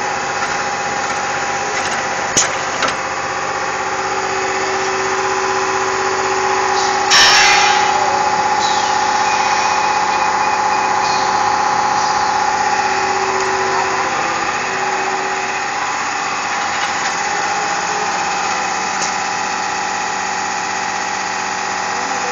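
HS SAM75 pocket spring assembler running steadily as rows of pocketed springs feed through: a continuous mechanical hum with a steady whine. A few clicks come about two seconds in, and a short loud hiss about seven seconds in.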